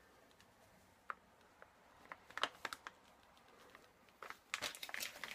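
Faint handling noises: scattered light clicks and taps, then soft rustling near the end, as a cane banneton proofing basket is moved about over a marble board.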